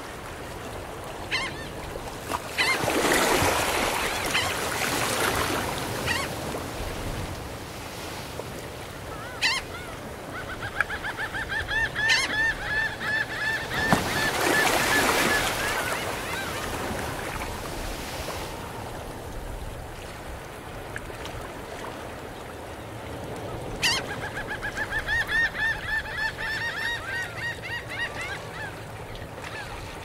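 Gentle ocean waves washing onto a sandy shore, surging twice, with seagulls calling in two long runs of quick, repeated cries, one about ten seconds in and one near the end.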